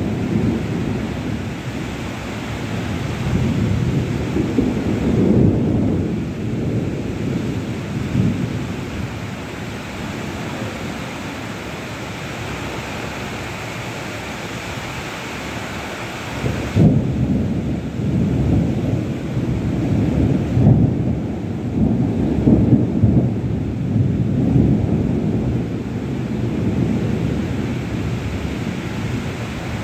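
Heavy rain pouring steadily, with a low rumble that swells and fades in gusts, strongest in the second half.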